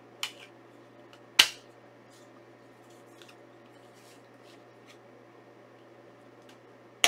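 Sharp plastic-and-metal clicks and taps from a Blu-ray steelbook case being handled: one just after the start, a louder one about a second and a half in and another at the very end, with faint ticks between.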